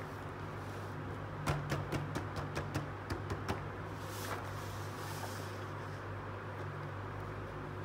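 Plastic toy pieces in a cardboard box being handled: a quick run of light clicks and knocks, then a short rustle, over a steady low hum.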